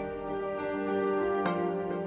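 Soft instrumental background music with held, gently plucked notes; a new note comes in about one and a half seconds in.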